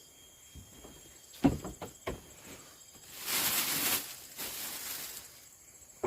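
Cooking sounds: a few light knocks, then a hiss about a second long three seconds in, followed by a softer hiss.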